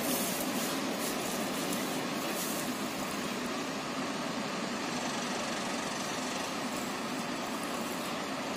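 A train pulling away, heard as a steady rumble and hiss, with a few faint sharp clicks in the first three seconds.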